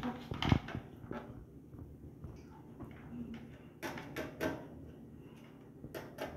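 Clicks and knocks of a screwdriver and metal parts being handled at an electric water heater's thermostat terminals: the loudest knock about half a second in, a few more around four seconds and again near six seconds.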